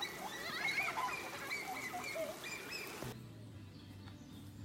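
Several overlapping wavering, high animal calls, cut off abruptly about three seconds in, followed by a low steady hum.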